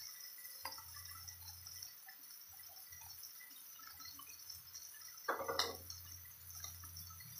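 Chicken pieces frying in oil with onion, ginger and garlic in a nonstick pan: a faint sizzle with scattered small pops, and a brief louder sound about five seconds in.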